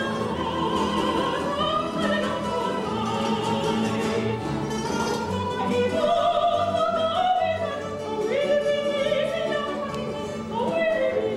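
Operatic singing with orchestral accompaniment: a voice holding long notes with vibrato, sliding between them.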